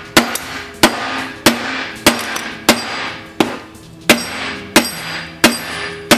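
Hammer blows on a steering shaft, driving a needle bearing and bronze bushing into a steering box. About ten sharp, evenly spaced strikes come roughly one every two-thirds of a second, each with a short ring after it.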